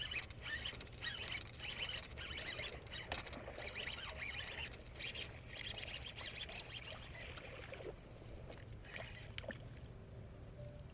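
A small hooked fish splashing and thrashing at the water's surface as it is reeled in through shallow weedy water, an irregular fizzy splashing that dies down about eight seconds in. A steady low rumble of wind on the microphone runs underneath.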